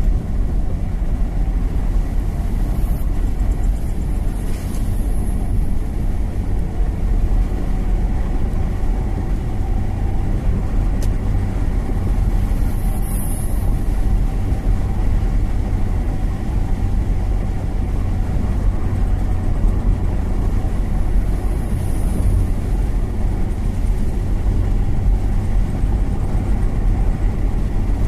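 Steady low rumble of a vehicle travelling along a road, with a few short, faint high-pitched sounds breaking through now and then.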